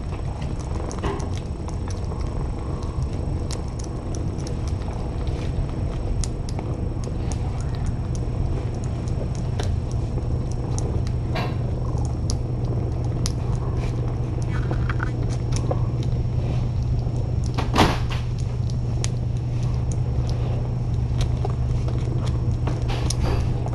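Cat purring in a steady low rumble, with many small faint clicks of kittens eating from a plate; one louder click about three-quarters of the way through.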